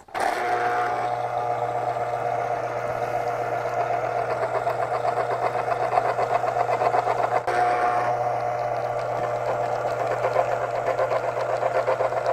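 Cuisinart CCJ-500 electric citrus juicer running, its motor-driven reamer spinning under an orange half pressed down by hand. It makes a steady motor hum with a fast, even pulsing and dips briefly about seven seconds in.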